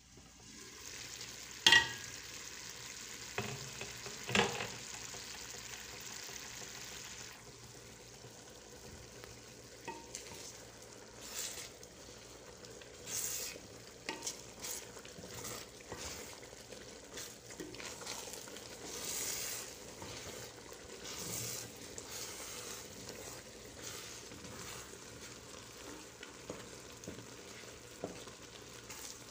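Rice and chicken simmering in broth in a granite-coated pot: a steady sizzling hiss, with two sharp knocks in the first few seconds as the glass lid comes off. After that a wooden spoon stirs and scrapes through the thickening rice at irregular intervals.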